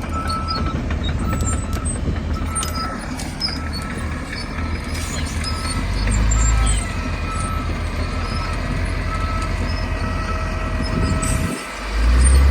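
Heavy diesel land-clearing machinery running, with a reversing alarm beeping at an even on-off rhythm over it. The engine swells louder for a moment about six seconds in, drops briefly, then rises loud again near the end.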